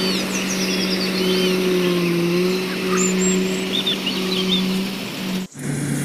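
Rice combine harvester's engine running steadily, a low hum that dips slightly in pitch about two seconds in. It cuts off abruptly near the end and comes back at a lower pitch.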